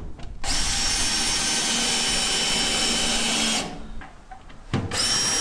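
Power drill running at a steady high whine into a plywood gusset on a wooden roof rafter. It runs for about three seconds, stops, and starts again near the end.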